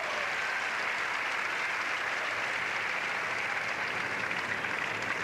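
Tennis stadium crowd applauding steadily at the end of a point.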